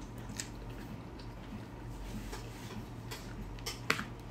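Metal spoon scraping and tapping on a plastic plate while scooping food: a few faint clicks, the sharpest just before the end, over a low steady hum.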